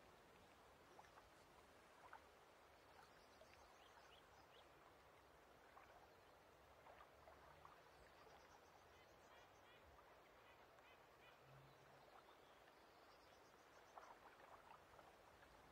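Quiet lake ambience: a soft, steady hush of water with faint scattered clicks, and a bird calling in runs of short, repeated high notes from about halfway through.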